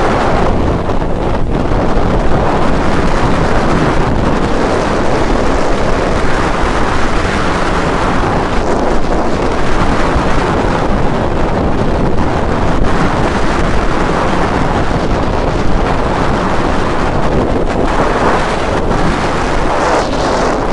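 Steady loud wind rush buffeting the microphone of a camera on a motorcycle riding at highway speed, with the motorcycle's road noise underneath.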